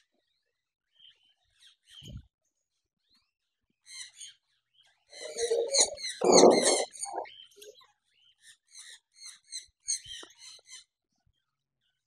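Caged parrots calling with many short, high chirps, and a louder, harsher burst of calling about five to seven seconds in.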